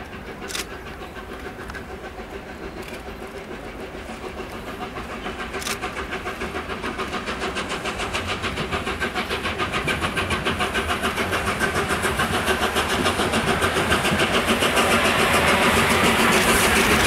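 LNER Peppercorn A1 Pacific steam locomotive 60163 Tornado working under steam, its three-cylinder exhaust beats in a fast, even rhythm that grows steadily louder as it approaches. There is a sharp click about half a second in.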